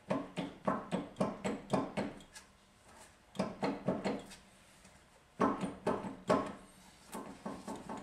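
Front wheel of a 2006 Hummer H3 being rocked by hand at the top and bottom of the tire, knocking about three times a second in runs with short pauses. The knocks are the clunk of play in a badly worn wheel bearing.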